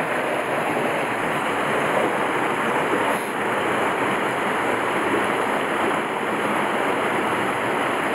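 Small waterfall spilling into a stream pool: a steady rushing of water.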